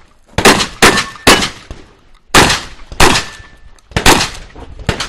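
A rapid string of shotgun shots, seven in about five seconds. Three come about half a second apart, then two more, then two more.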